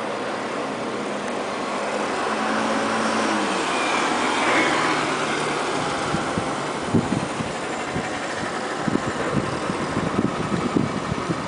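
Steady industrial machinery noise, an engine- or fan-like roar with a low hum that steps down in pitch about three and a half seconds in. From about halfway, irregular low knocks sound over it.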